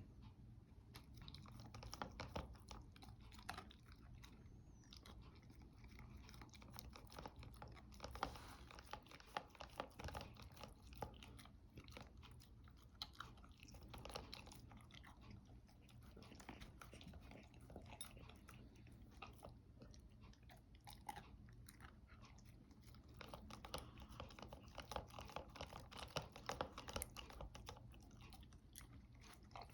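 Dog chewing and crunching its food, a steady run of irregular crunches and clicks of the teeth.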